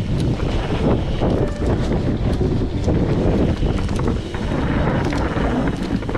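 Mountain bike riding down a wet trail: heavy wind buffeting on the microphone over tyre rumble, with frequent clicks and knocks from the bike rattling over the ground.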